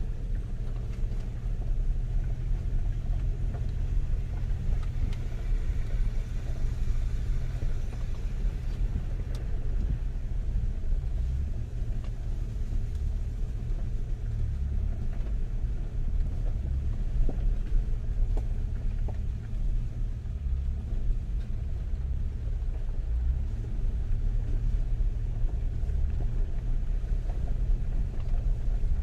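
Land Rover Discovery driving along a mountain road: a steady low rumble of engine and tyres.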